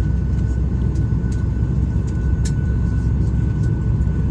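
Airliner cabin noise: a steady low rumble with a thin, high, steady whine over it and a few faint clicks.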